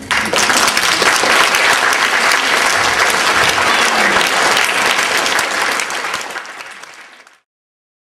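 Audience applauding, breaking out suddenly, then thinning and cutting off abruptly about seven seconds in.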